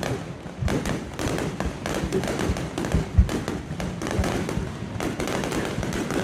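Aerial fireworks bursting: a run of booms and crackles, the loudest boom about three seconds in.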